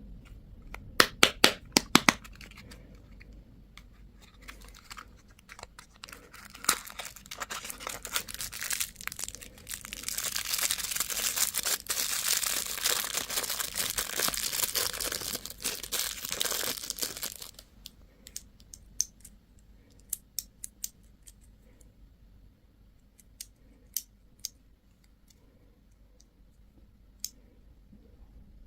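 A candy wrapper being handled and torn open. A quick run of sharp clicks comes near the start, then a long stretch of steady crinkling and tearing from about ten to seventeen seconds in, followed by scattered light clicks and taps.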